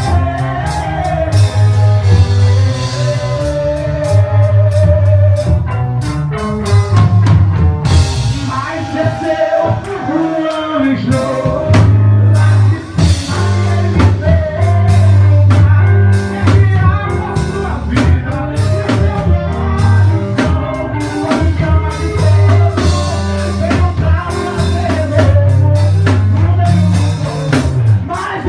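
Gospel song performed by a band: a singer over drum kit, guitar and heavy bass notes, loud with a steady beat.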